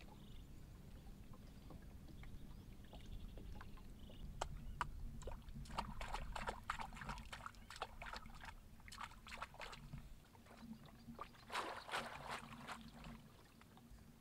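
Hands splashing and sloshing in water: a run of small splashes and clicks, with a denser burst near the end.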